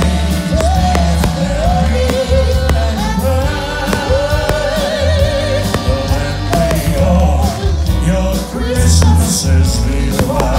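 A song with a singing voice over a heavy, regular bass beat, played loudly throughout.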